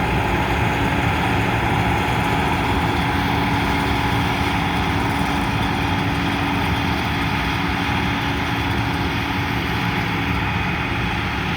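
Combine harvester running steadily, its engine and threshing machinery giving an even, unchanging drone with a few constant tones.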